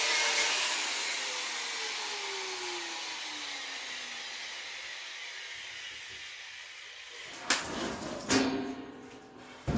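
An angle grinder spinning down after grinding off screw tips: its whir fades while the motor's pitch falls slowly. A few sharp knocks come near the end.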